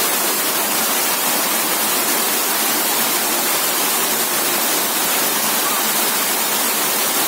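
Steady rush of flowing river water, a constant even hiss with no breaks.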